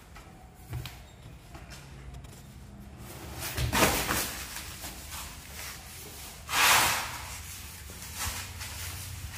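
A person dropping from a desk onto flattened cardboard on a concrete floor: a thud with knocks and cardboard scraping. A louder rustling scrape of cardboard follows about two-thirds of the way through.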